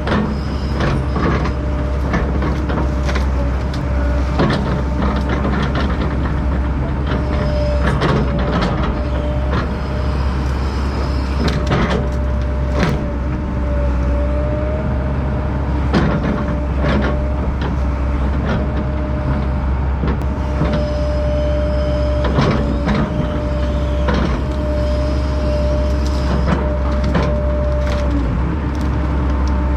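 Heavy land-clearing machinery running steadily under load, with a low drone and a steady whine that comes and goes. Frequent sharp cracks and knocks of wood breaking.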